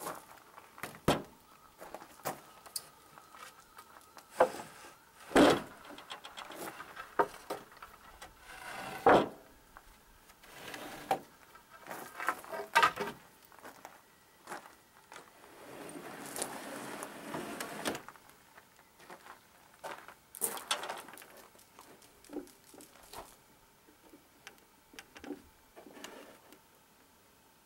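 Scattered knocks and clinks at irregular intervals, the loudest about five and nine seconds in, with about two seconds of even hissing noise a little past the middle.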